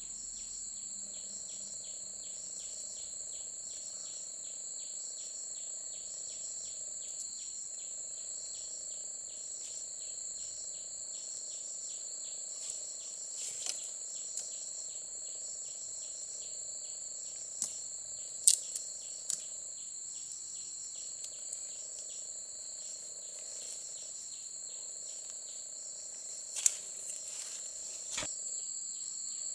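Steady high-pitched insect chorus: a constant shrill drone with a fast pulsing trill beneath it, and a lower hum that stops and starts every several seconds. A few sharp clicks and snaps stand out, the loudest about halfway through and another near the end.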